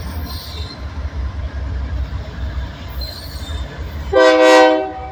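Freight train rolling with a steady low rumble and faint wheel squeal. About four seconds in, the Union Pacific 6377 locomotive's horn sounds one short, loud, multi-note chord lasting under a second.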